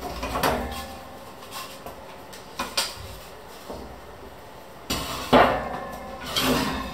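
Wooden cutting board and wire cooling rack being handled on a wooden worktop: a handful of scattered knocks and light metal clattering, loudest about five seconds in.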